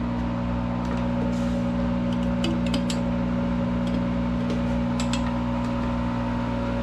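Monarch 10EE lathe running unloaded on a warm-up run, giving a steady hum of several even tones. A few short clicks sound over it.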